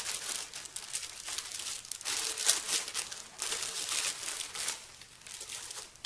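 Clear plastic bag crinkling in irregular bursts as it is pulled off a protein skimmer by hand.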